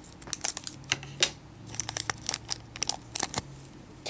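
Scissors cutting open a small clear plastic bag, with the thin plastic crinkling and crackling irregularly as it is handled.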